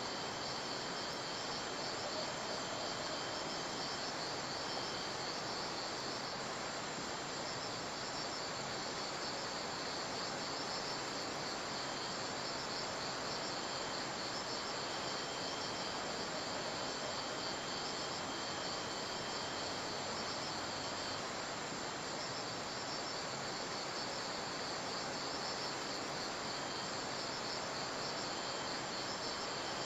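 A steady chorus of crickets chirping over an even background hiss, with a higher pulsing trill throughout and a lower one that comes and goes.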